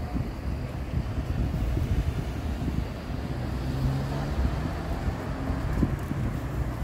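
Wind buffeting the microphone in a gusty low rumble, with a faint low engine hum through the middle.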